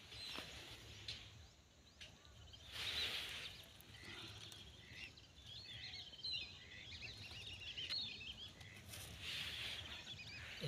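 Faint twittering and chirping of small birds through the middle, over a soft outdoor background. Two brief rustling bursts come about three seconds in and near the end.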